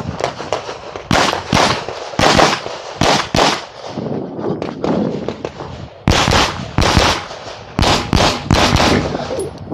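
9mm CZ Shadow 2 pistol firing rapid shots, mostly in quick pairs. There is one string in the first few seconds, a short gap while the shooter moves, then another string near the end.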